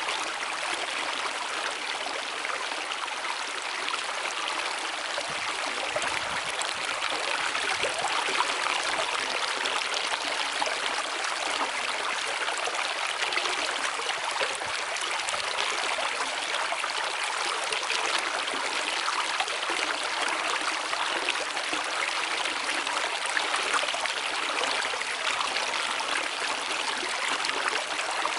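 Rushing river water, a steady, even rush with no breaks.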